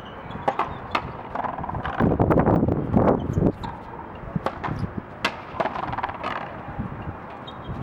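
Racquet frontón rally: the rubber ball struck by stringed rackets and smacking off the concrete front wall. The result is sharp cracks every half second to a second, over a rushing background noise.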